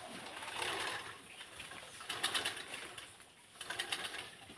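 Water splashing as a plastic jerrycan is filled at a stone well, in three irregular bursts of splashing and knocking.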